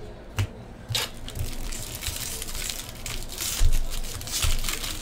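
Foil trading-card pack wrapper crinkling and being torn open by hand, with a few soft knocks as cards are handled.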